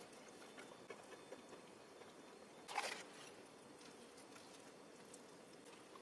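Faint taps and scrapes of disposable wooden chopsticks against a plastic food tray as they cut into an okonomiyaki, with one louder, brief scrape a little under three seconds in.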